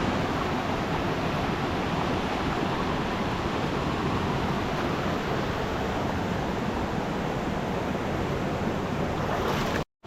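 Steady rush of water at a jungle swim hole, a constant even hiss with no breaks.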